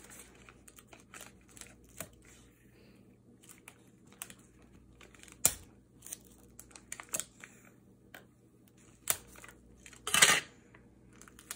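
Clear tape being pulled and torn from a small plastic desk tape dispenser, amid scattered light clicks and taps of the dispenser on a countertop. A sharp click about halfway through and a short rasp near the end are the loudest sounds.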